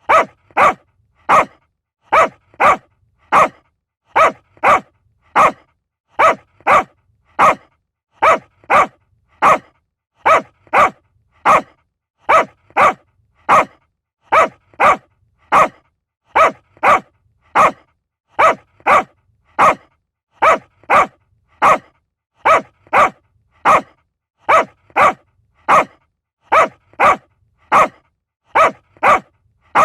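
Small dog barking: sharp, short barks in groups of three, the same pattern repeating evenly about every two seconds.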